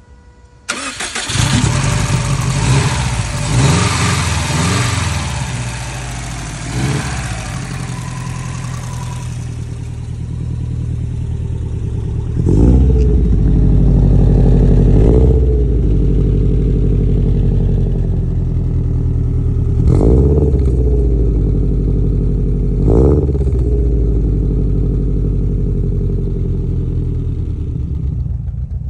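Subaru WRX STi's turbocharged flat-four engine cold-starting about a second in and running at a steady idle. It is first heard from the engine bay with a bright hiss, then from about halfway through deeper and louder at the exhaust tip. Several brief rises in revs come and go along the way.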